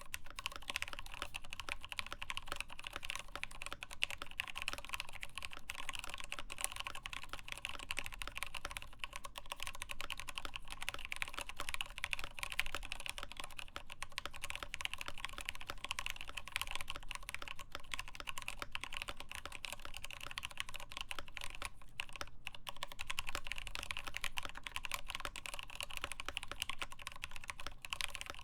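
Continuous fast typing on a mechanical keyboard, a CoolerMaster Masterkeys Pro S in a Norbatouch case with lubed Tealios linear switches, a full steel plate and POM keycaps. Dense keystrokes start suddenly, with a brief pause about 22 seconds in.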